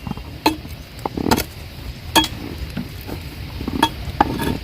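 Irregular clinks, knocks and scrapes as finished kitchen compost is taken out of a clay pot, about eight sharp strikes over the few seconds.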